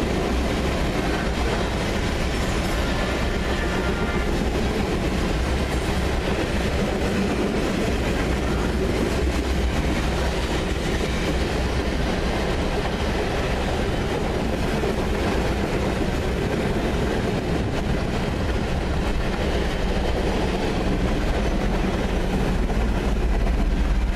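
Freight train rolling past at a steady speed: tank cars and then covered hopper cars, their steel wheels running continuously on the rails.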